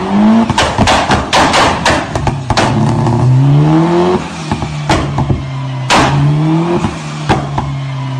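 Mitsubishi Lancer Evolution's turbocharged 4G63 four-cylinder being revved on a chassis dyno, the engine pitch climbing in three rising sweeps over a steady running note. Loud, sharp cracks from the exhaust come in irregular clusters between and through the revs.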